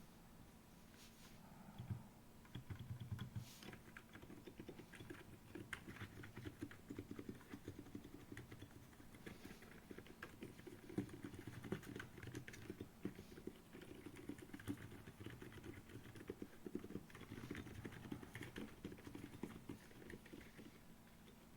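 Typing on a Feker FK68T 65% mechanical keyboard with Silent Cream Yellow tactile switches and OEM-profile keycaps. Quiet, rapid keystrokes start about two seconds in and continue steadily.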